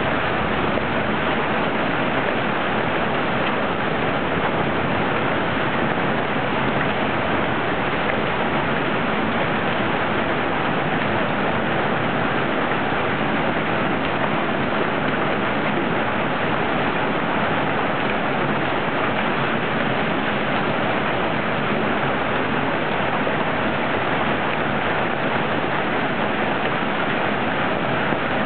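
Hailstorm: hail and rain falling hard, a dense, steady patter of countless small impacts without letup.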